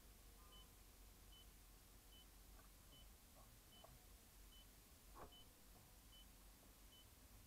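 Near silence, with a faint, short, high-pitched electronic beep repeating a little more than once a second.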